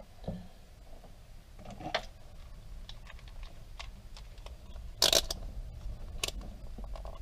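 Quiet handling on a workbench: scattered small clicks and knocks as tools are set down and a handheld multimeter with its test leads is picked up, with a short louder rustle about five seconds in and a sharp click about a second later.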